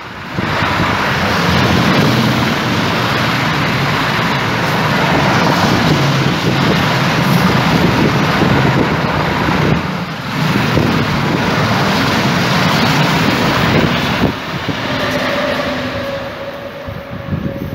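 A long freight train of lorries on low flat wagons (a rolling-highway train) running past, with loud steady wheel and wagon rumble. The noise fades near the end as the last wagons go by.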